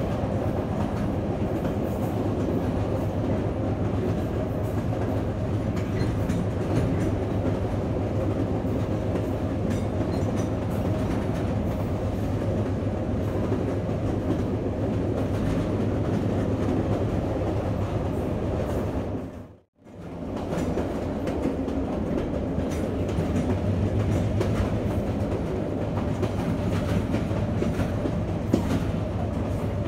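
A train running along the track, heard at the coupling between an EMD G12 diesel locomotive and the next vehicle. A steady rumble of engine and wheels on rails, with a clatter of small knocks. The sound briefly fades out and back in about two-thirds of the way through.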